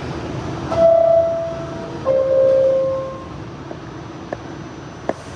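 New York subway R46 car's door chime: two descending tones, the second lower, a little over a second apart, each ringing and fading, over the steady hum of the standing train. A short sharp knock follows near the end.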